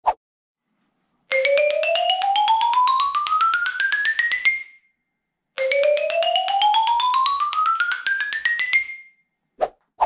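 Malletech MTech 3.5 padouk xylophone struck with mallets: a fast rising scale of about ten notes a second climbs about two octaves and rings off, then the same run is played a second time. A brief knock at the start and another near the end.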